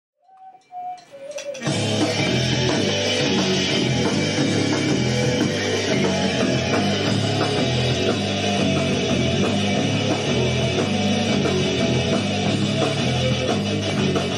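Loud, fast rock played by an electric guitar, bass and drum band. A few short faint notes come first, then the full band comes in about a second and a half in and plays on without a break.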